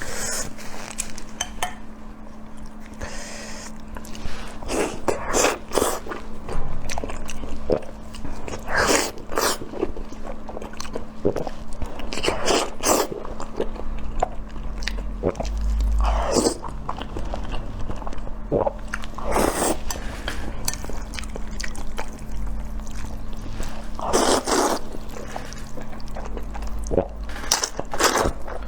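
Close-miked eating: a person chewing and biting food, with frequent short wet clicks and smacks of the mouth at an irregular pace. A faint steady hum runs underneath.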